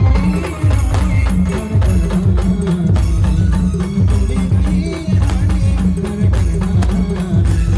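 Brass band playing a Hindi/Ahirani film-style song, with a strong low bass line and dense, driving percussion of drums and jingling tambourine-like shakers.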